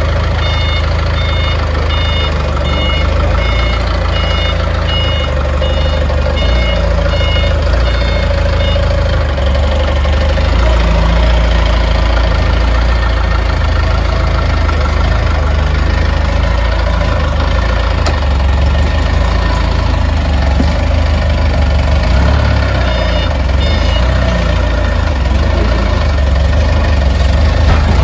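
Heavy diesel engine running steadily, with a machine's warning alarm beeping repeatedly over roughly the first nine seconds and briefly again near the end.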